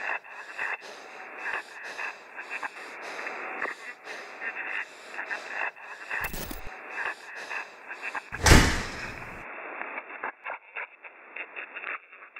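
A person breathing hard and fast in quick, rhythmic gasps. About eight and a half seconds in comes a single loud bang with a low boom that dies away over about a second, followed by faint clicks.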